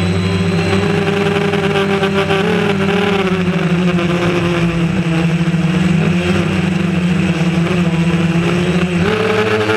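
DJI Phantom quadcopter's four electric motors and propellers buzzing steadily in flight, the pitch shifting slightly as the throttle changes.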